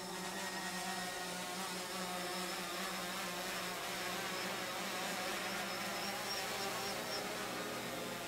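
DJI Phantom 4 Pro quadcopter hovering, its four spinning propellers giving a steady buzzing whine.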